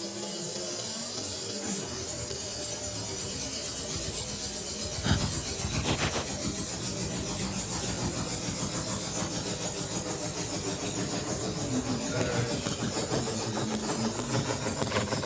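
Laser engraving machine working on a wooden coaster: its moving head and motors give a steady mechanical sound that pulses in a regular rhythm, a couple of beats a second, with two brief louder sounds about five and six seconds in.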